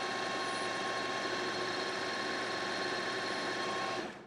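Precision Matthews PM-1440GT metal lathe running steadily, its drive giving an even whine made of several fixed tones; it cuts off suddenly near the end.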